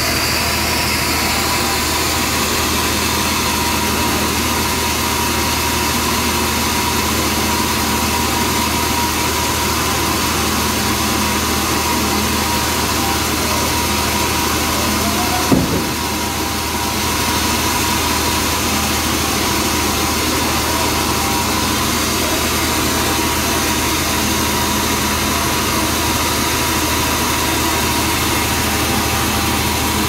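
Large band sawmill running steadily as its blade saws through a big log on the carriage, with a constant high whine over a low machine hum. A single brief knock about halfway through.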